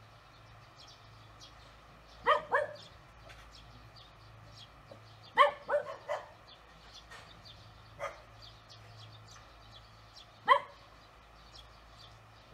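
A dog barking in short single yelps: two barks about two seconds in, three in quick succession around five to six seconds, a weaker one near eight seconds and one more near ten and a half. Faint high chirps run underneath over a steady low hum.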